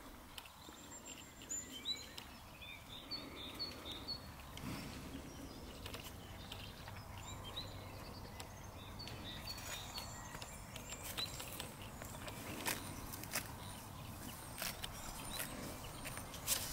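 Quiet rural background with small birds chirping in short high calls, and a run of sharp clicks from about halfway on.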